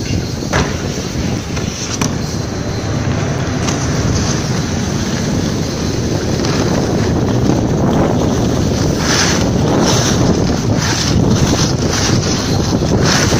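Wind buffeting the microphone of a moving snowboarder as a steady rumble. In the second half, snowboard edges scrape across the snow in short bursts.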